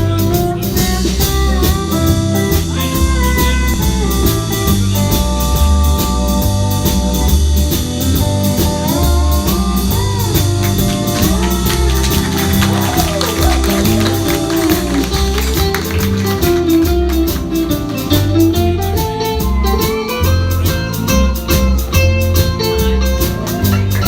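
A live band playing an instrumental break between sung verses of a country song: a lead instrument carries a sliding, bending melody over bass and a steady beat.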